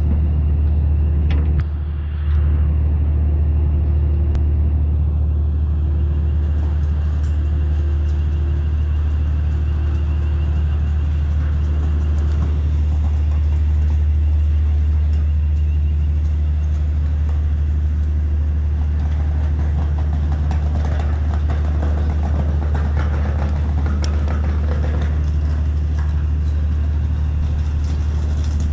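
Fast passenger ferry's engines running with a steady, deep rumble, heard from the open deck as the ship manoeuvres in harbour, with a faint pulsing hum above it.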